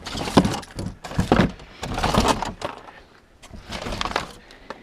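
Keys rattling and a door being unlocked and opened: a run of knocks and clatters through the first couple of seconds, then more rattling near the end.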